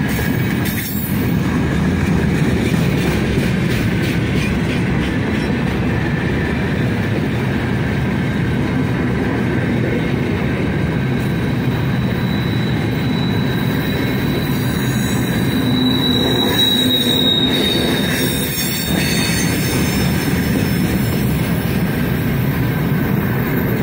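Freight train of open gondola wagons rolling past at close range: a steady rumble of steel wheels on rail. A thin, high wheel squeal rises over it for several seconds in the middle.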